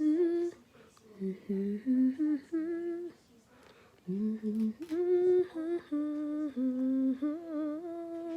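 A person humming a slow melody, held notes stepping up and down, in three phrases with short breaks between them.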